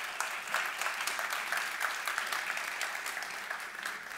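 Audience applauding: many hands clapping together in a steady, dense patter that begins to thin out near the end.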